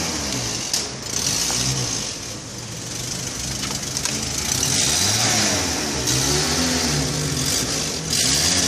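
A car engine running close by, its pitch rising and falling several times as it revs.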